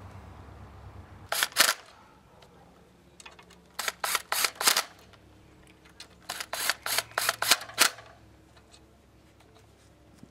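Ratchet wrench clicking in short runs of strokes as bolts on the water pump housing of a Johnson 15 hp outboard's lower unit are run down. There are two strokes about a second and a half in, a quick run of four or five around four seconds, and six or seven more a little later.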